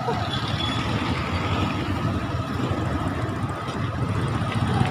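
Vehicle engine running with a steady low rumble in slow street traffic, with a faint steady whine above it.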